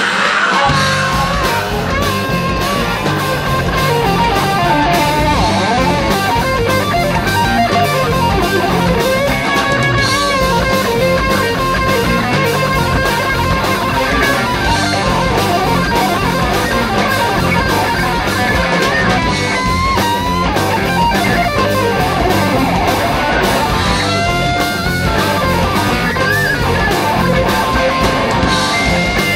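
Live rock band playing loud and steady: an electric guitar solo with bending, gliding notes over drums and bass guitar.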